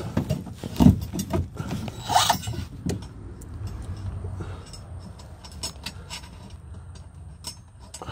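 Small metal clinks and knocks as a screw and washer are handled and pressed against a steel Unistrut channel. There is a louder knock about a second in and a short scrape about two seconds in. No driver is running.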